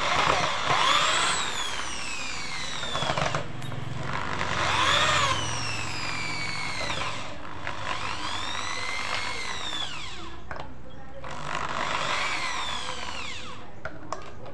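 AEG SB 500 RE electric impact drill drilling into a wooden block, its motor whining up in speed and winding down again four times, with a short pause between runs.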